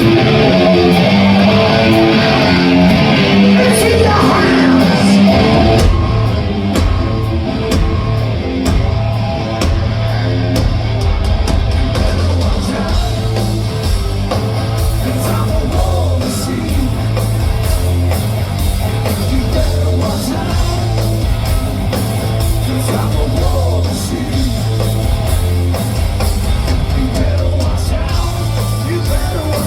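Live heavy rock band playing at full volume: electric guitar riffing, then about six seconds in heavy bass and drums take over with crashing cymbals.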